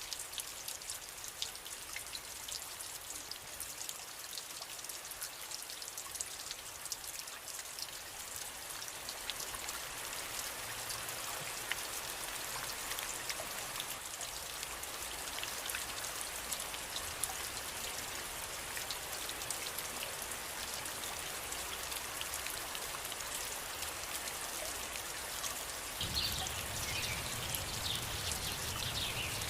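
Steady rain falling, with countless individual drops pattering on a surface, growing slightly louder over time. Near the end a low rumble joins it, along with a few short high chirps.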